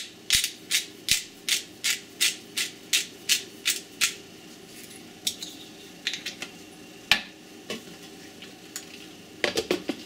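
Black pepper mill being twisted over a bowl, grinding with a steady series of crisp clicks about three a second, then a few scattered clicks. Near the end, a quick clatter of plastic clicks as the mini chopper's lid is fitted onto the bowl.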